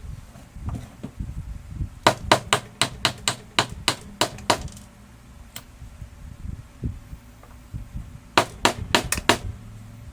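Light tapping on a hard object: a run of about ten quick sharp taps, a single tap, then a faster run of five.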